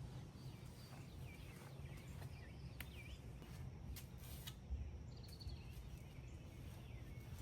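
Faint outdoor background with a steady low rumble and a few short bird chirps, broken by a few sharp clicks.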